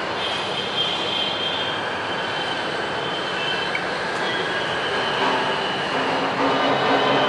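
Steady loud background noise with faint high squealing tones in the first half, getting louder near the end.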